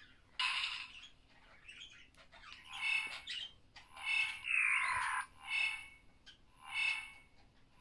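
Sound effects from the Littlebits Space Rover app: short electronic bursts with stacked tones, repeating about once every second and a quarter from around three seconds in, with a falling swoop about four and a half seconds in.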